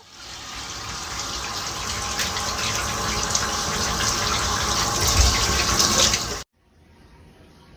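Shower running: a steady spray of water that grows louder, then cuts off abruptly near the end.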